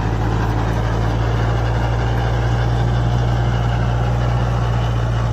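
Kubota MU4501 4WD tractor working under load, its diesel engine running with a steady, even low hum as it drives an 8-foot rotavator through the PTO and tows a disc harrow behind.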